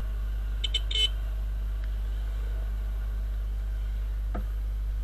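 Viper 200 motorcycle engine running steadily at low revs. About a second in there is a short, high-pitched beeping.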